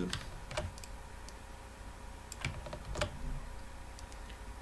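A handful of scattered computer keyboard and mouse clicks while code is edited, the clearest about two and a half and three seconds in, over a faint steady hum.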